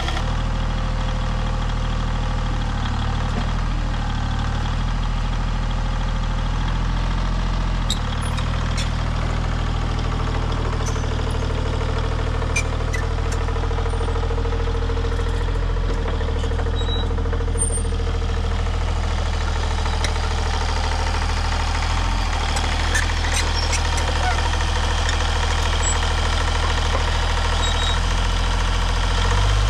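Yanmar YB25 mini excavator's diesel engine running steadily under the operator, with scattered light clicks and clanks from the machine as it moves.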